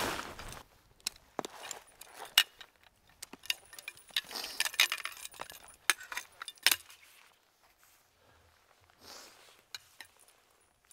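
Metal-framed wakan snowshoes and their buckles and clips clinking and rattling as they are unclipped from a backpack and handled: a run of sharp, irregular clinks with brief rustles, growing sparse in the last few seconds.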